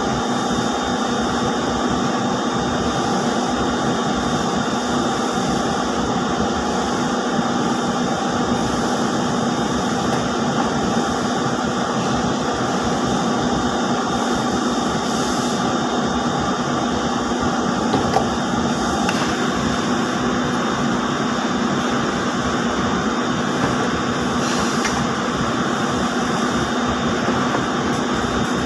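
Steady drone of textile mill machinery, as of Marzoli ring spinning frames running, with a constant low hum and a faint high whine.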